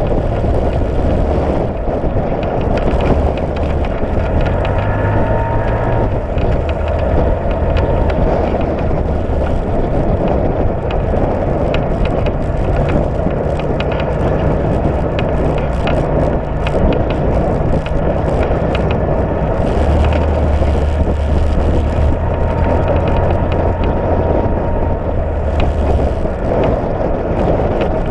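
Side-by-side UTV engine running under way on a dirt trail, its low note shifting up and down several times as the speed changes, with a steady rumble and crackle of tyres on dirt and gravel.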